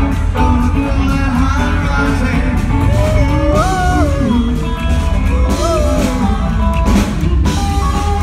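Live rockabilly band playing at full volume: electric guitar, slapped upright double bass and drum kit over a steady driving beat, with bending high notes in the middle.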